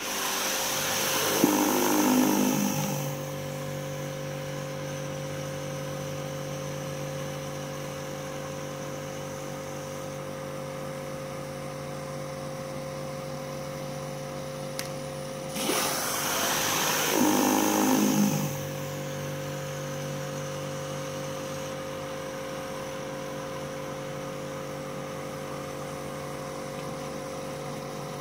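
Kärcher K4 Compact electric pressure washer running steadily with a T-Racer surface cleaner on concrete, a constant motor-and-pump hum. Twice, at the start and about halfway, it gets louder for a few seconds with a burst of hissing spray.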